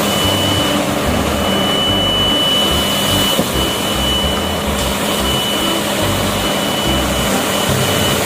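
Steady machine running noise, engine-like, with a thin high whine over an uneven low rumble; it cuts off abruptly at the end.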